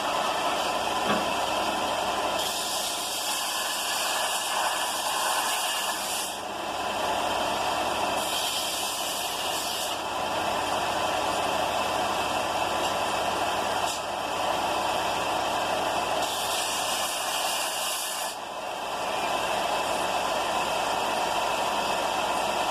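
Bauer 4-inch by 36-inch belt and 6-inch disc sander running steadily while a welded steel Allen key is ground on it. The grinding hiss turns brighter and harsher for a few seconds at a time, three times, as the metal is pressed against the abrasive.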